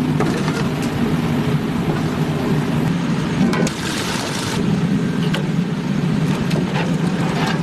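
Steady low machine rumble with a rushing noise, and a brief hiss about four seconds in.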